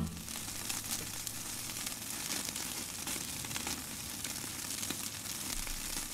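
Steady crackling hiss with many small pops, the sizzle-and-crackle sound of flames or hot fat.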